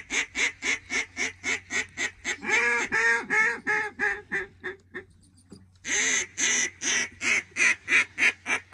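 Mallard duck call blown in runs of loud quacks at about four a second: a long series whose notes swell longer in the middle and then taper off, a pause of about a second, then a second loud series, in the manner of a hail call to ducks in the air.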